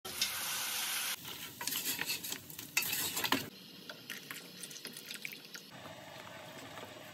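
Wooden spoon stirring thick nihari gravy in a stainless steel pot, with scraping and light knocks of the spoon against the pot. A steady hiss opens the first second, and the stirring is busiest in the first half and quieter after.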